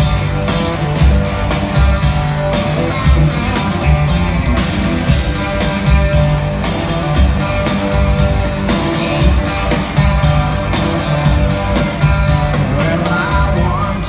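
Live country-rock band playing through an arena sound system: electric guitar over a steady drum beat and bass, with a sliding guitar figure near the end.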